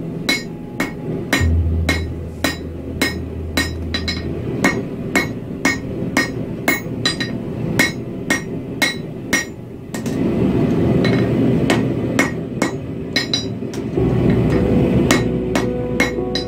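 Hand hammer striking a red-hot bar of 1075 steel on a chain-wrapped anvil, about two to three blows a second, each with a short bright ring: forging a knife blade. A steady low rumble comes in underneath about ten seconds in.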